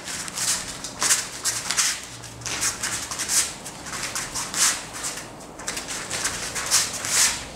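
Two training partners' forearms and hands brushing and rubbing against each other in a Wing Chun one-hand sticky-hand (chi sao) drill: a string of short swishes, about one or two a second.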